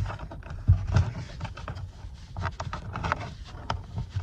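Screwdriver prying off a car's rear speaker trim cover: a string of irregular clicks and knocks as the clips let go and the cover is worked loose.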